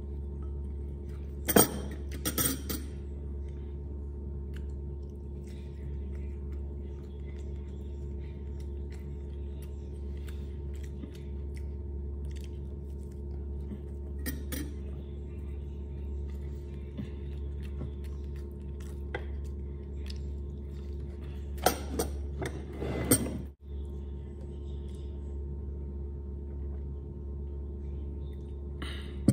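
Ceramic plates and bowl clinking and knocking as food is picked from them by hand: a few sharp clinks about two seconds in, one in the middle and a pair near the end, over a steady low hum.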